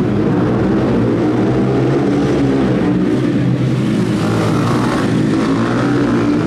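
Small four-stroke engines of mini shifter ATVs running at race speed, revving up and down with stepping changes in pitch as the quads race past.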